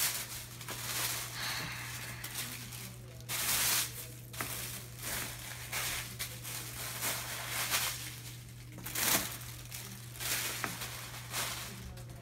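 Tissue paper rustling and crinkling in irregular bursts as it is pulled from a paper gift bag, over a steady low hum.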